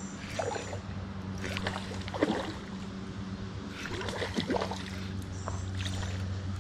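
A hooked brook trout splashing and thrashing at the surface while a spinning reel is cranked in, heard as irregular short splashy knocks over a steady low hum.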